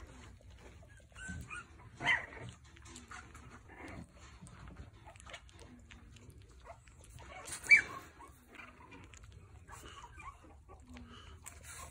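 Young French Bulldog puppies whimpering and squeaking in short, scattered cries, with two sharper, louder squeals about two seconds in and near eight seconds in.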